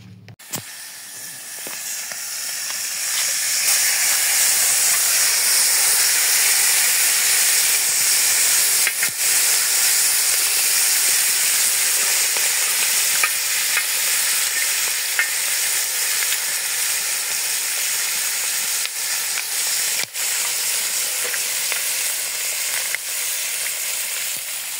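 Fish sizzling as they fry in hot oil in a large iron pan, a dense, steady hiss that builds over the first few seconds and then holds, with a few sharp ticks as a utensil stirs the fish.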